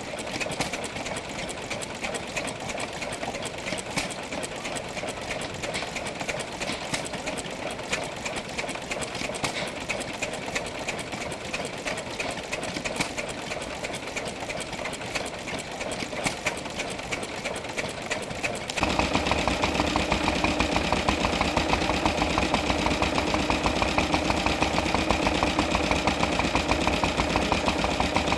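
A vintage hopper-cooled stationary engine with a heavy flywheel running with a fast, even clatter. About two-thirds of the way through, a second stationary engine takes over, louder, with a deeper steady beat.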